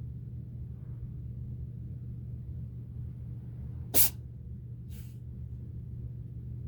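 A domestic cat sneezing: one sharp, loud sneeze about four seconds in, followed a second later by a fainter, breathy one.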